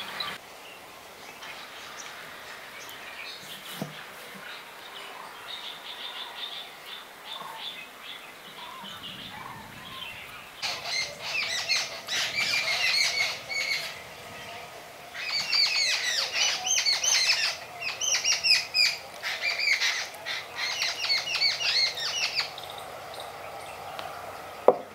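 Songbirds chirping: faint calls at first, then from about ten seconds in loud bouts of rapid, repeated high chirps, broken by short pauses. A single sharp tap sounds near the end.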